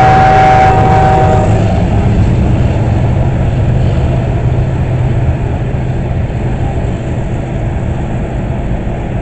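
CSX freight train passing close by. A steady whine from the trailing GE AC44CW locomotive fades out in the first second or two, leaving the continuous rolling rumble of loaded tank cars on the rails, slowly growing quieter.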